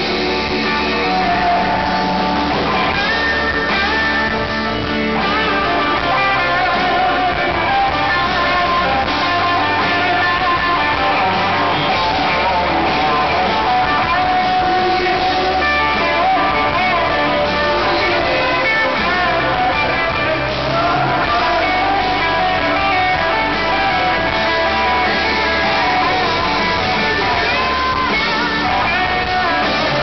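Live rock band playing, with electric guitars to the fore over bass guitar and drums.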